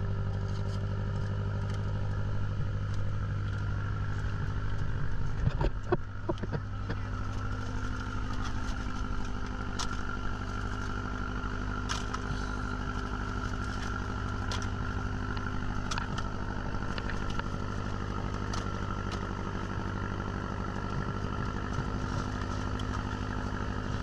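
An engine running steadily with an even low hum. A cluster of knocks and clatter comes about five to six seconds in.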